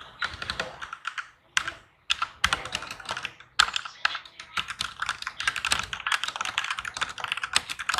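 MAGEGEE MK-Box mechanical keyboard being typed on quickly: a dense run of key clicks, with brief pauses about one and a half and two seconds in.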